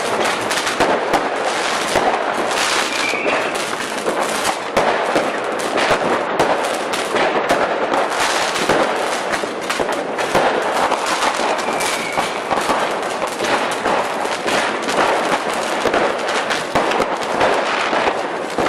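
Firecrackers going off in a rapid, unbroken stream of overlapping sharp pops and cracks.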